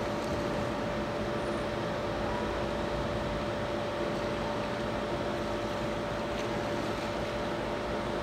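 Steady shipyard background noise: an even rushing hiss with a constant mid-pitched machinery hum running through it.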